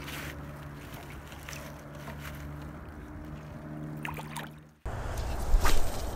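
A released largemouth bass splashing back into the lake about four seconds in, over a steady low hum. The sound then cuts off abruptly and gives way to a rougher low rumble with two sharp knocks.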